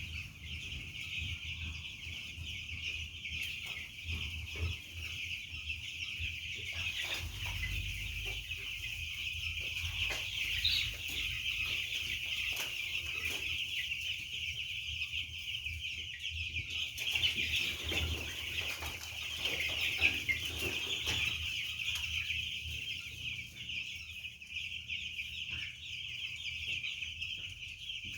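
A brooder flock of week-old chicks peeping all together in a dense, unbroken high chorus, with occasional soft knocks.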